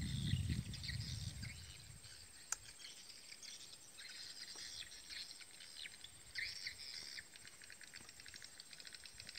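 Small birds chirping and twittering in quick, irregular trills over a steady thin high tone. A low rumble fades out in the first second and a half, and there is a single sharp click about two and a half seconds in.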